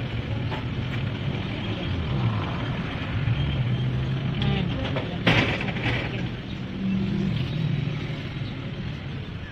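Street traffic: motorcycle and tricycle engines running and passing close by, a steady low rumble that swells and fades, with one short sharp noise about five seconds in.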